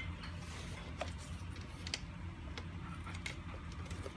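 A few light clicks and taps about a second apart, over a steady low hum.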